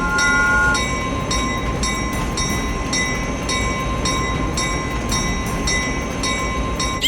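A train running with a steady rumble, while a bell rings about twice a second.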